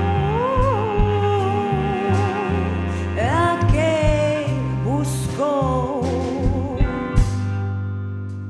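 Live band music: a wavering melody line with vibrato, sung or played on cello, over bass, guitar and drums. About seven seconds in, a final hit lands and the held chord rings out and fades, as at the end of a song.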